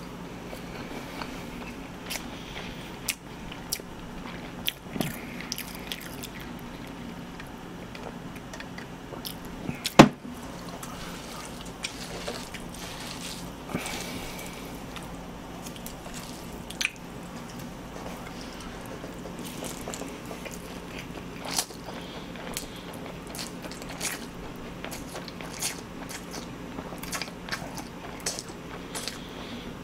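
Close-miked eating of spicy mixed cold noodles: chewing and slurping noodles, with frequent small clicks of chopsticks and food. There is one sharp louder knock about ten seconds in, over a steady low hum.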